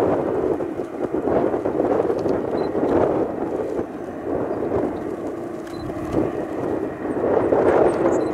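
Jet engines of a McDonnell Douglas MD-11F freighter running, heard as a rough, steady noise that eases in the middle and rises again near the end.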